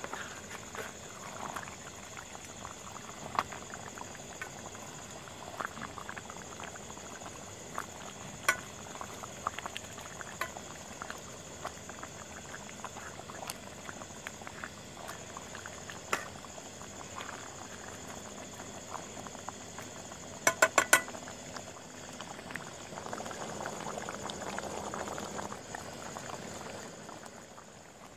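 Chicken curry bubbling in a large steel pot, with a steel ladle stirring and clinking against the pot now and then, including a quick run of about four knocks about two-thirds of the way through.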